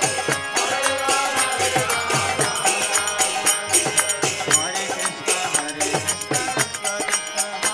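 Kirtan music played live: a harmonium holds chords under a fast, steady beat of karatala hand cymbals and mridanga drum strokes, with voices chanting.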